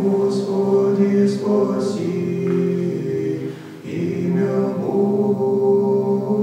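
Men's choir singing slow Russian Orthodox liturgical chant in sustained chords, with a brief break for breath about four seconds in.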